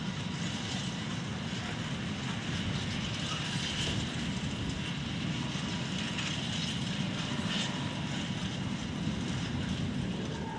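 Train running along the line: a steady rumble with rail and wheel noise that holds without a break.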